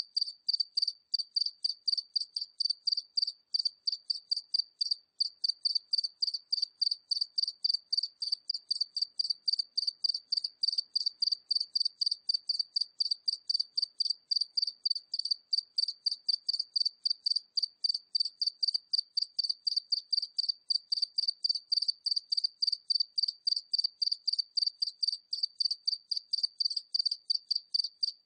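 A single cricket chirping steadily at medium distance: an unbroken, even rhythm of short high-pitched chirps, several a second.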